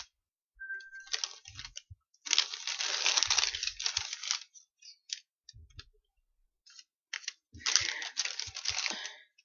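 A long paper store receipt rustling and crinkling as it is unrolled and handled, in three bursts: a short one about a second in, the longest from about two to four and a half seconds, and another near the end.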